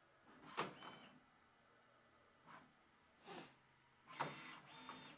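Bambu Lab H2C 3D printer's motors making short, quick moves during the hot-end rack setup routine: faint whirs and brief motor whines in separate bursts with pauses between. The longest burst, with a steady whine, comes near the end.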